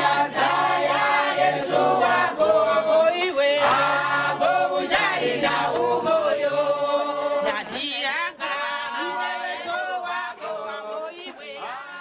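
A church choir singing together in many voices, a lively song of praise, fading out toward the end.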